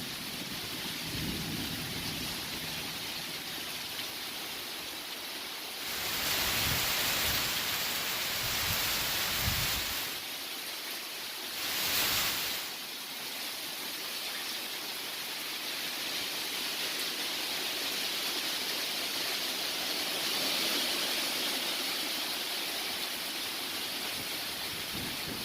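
Steady rain of a thunderstorm. It gets louder for a few seconds about a quarter of the way in, with some low rumbling, and there is a brief, louder rush near the middle.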